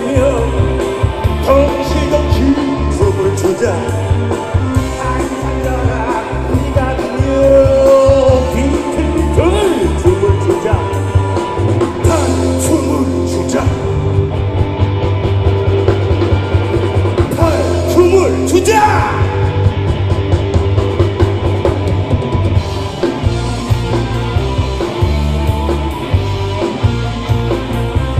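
Live rock band playing a song: drum kit keeping a steady beat under electric guitars and bass guitar.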